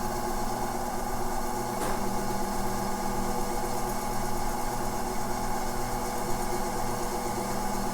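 Faceting machine running steadily, its polishing lap spinning with a gemstone pressed hard against it by hand: a steady hum with a faint pulsing low note, and one faint click about two seconds in.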